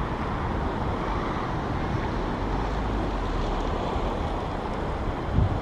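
Steady rush of wind buffeting the microphone over the low rumble of surf on a beach, with a stronger gust a little before the end.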